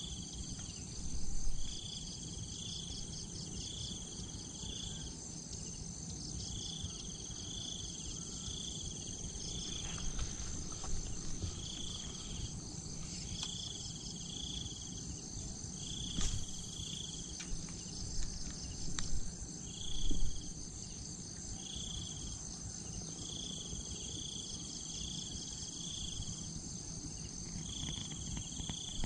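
Insects trilling steadily, with a repeated call of short, even high notes in runs of three to five, coming back every few seconds. A few faint knocks and rustles are heard in the middle.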